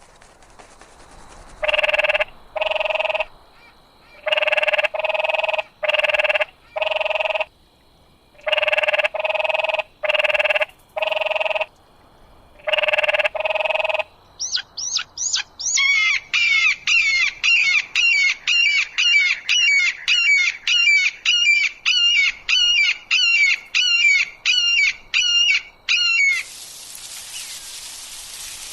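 A crow-like bird giving harsh caws in bursts of two to four. Then a long rapid run of short chirping notes, about two a second, for roughly twelve seconds. Near the end a steady hiss like rain takes over.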